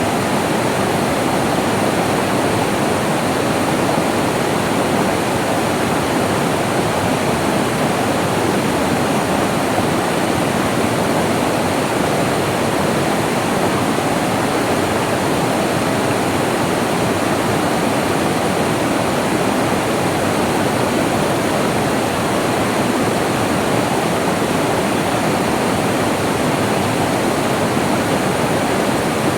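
Flowing water rushing in a steady, even stream, unchanging with no splashes or breaks.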